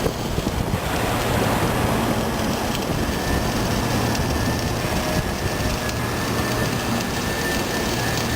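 Automatic vertical-up welding carriage laying a continuous weld: the arc crackles and hisses steadily over a low electrical hum.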